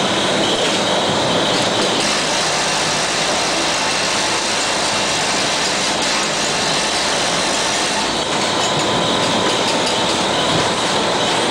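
PET-bottle tea beverage filling and capping machine running: a steady, dense mechanical noise with a faint steady tone running through it.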